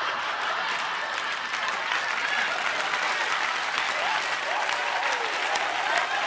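Television studio audience applauding steadily, with a few faint voices calling out in the second half.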